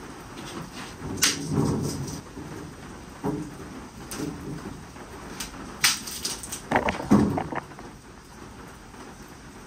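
A dead tree branch being broken up by hand: sharp twig snaps and cracks, with a quick cluster of them about seven seconds in, and the wood knocking and scraping on the shelter floor. Steady rain falls throughout.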